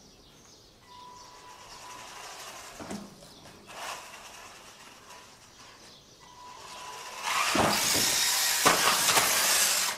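WLToys 144001 RC buggy driving up to a ramp and jumping. A faint high electric motor whine comes and goes, then from about seven seconds in there is a loud rushing run with several sharp knocks as it hits the ramp and lands hard. It is a landing steep enough to damage the car.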